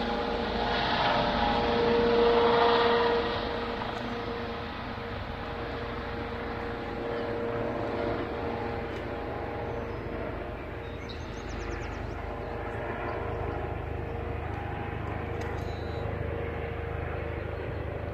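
A steady engine hum that swells about two to three seconds in, then eases off and carries on at a lower, even level.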